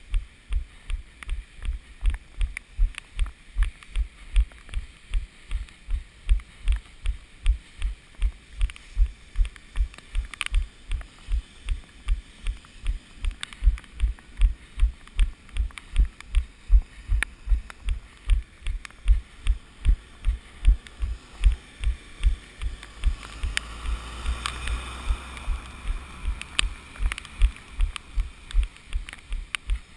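Running footfalls carried through a body-worn action camera: steady low thuds at about three per second, the runner's stride cadence. A rushing noise swells and fades for a few seconds near the end.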